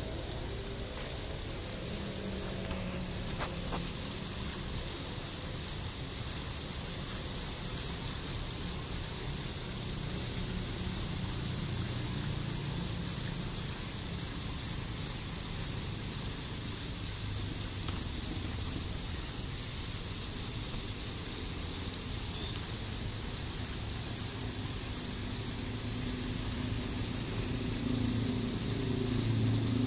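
Ornamental fountain splashing steadily: small upward water jets falling back into the pool and water spilling over a ledge, with a low rumble underneath.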